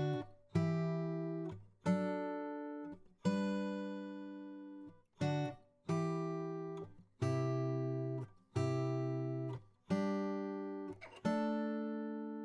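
Background music: guitar chords struck about every 1.3 seconds, each ringing out and fading before the next.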